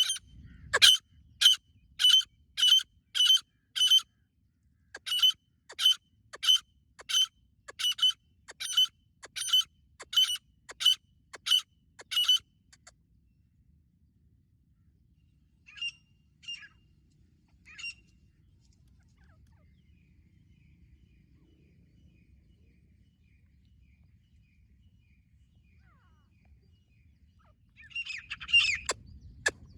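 Female grey francolin calling: a run of sharp, high calls at about two a second for the first twelve seconds, broken once by a short pause. Three single calls follow a few seconds later, and a denser, scratchier burst of calls comes near the end.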